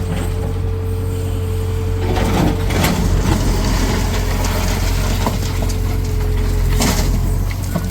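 Tata Hitachi Shinrai backhoe loader's diesel engine running steadily with a steady whine, with a few short knocks of metal and stone.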